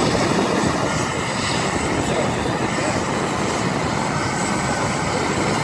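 Navy LCAC hovercraft's gas turbine engines and ducted propellers running as it drives up the beach: a loud, steady roar with a thin high whine over it.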